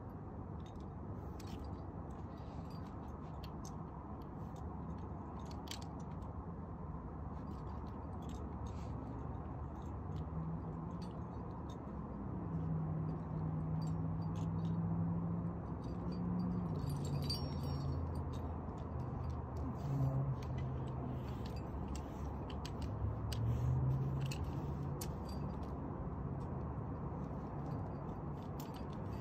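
Climbing hardware on a harness gear rack, carabiners and cams, clinking and jangling in scattered light taps over steady background noise. A low droning hum comes in about a third of the way through, wavers in pitch, and fades near the end.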